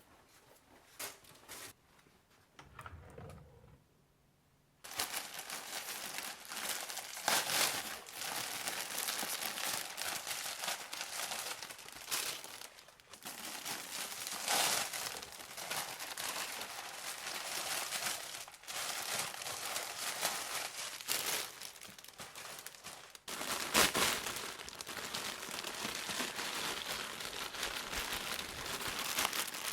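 Food packaging crinkling and rustling as it is handled and unpacked. After a quiet start with a few light knocks, it runs on continuously from about five seconds in.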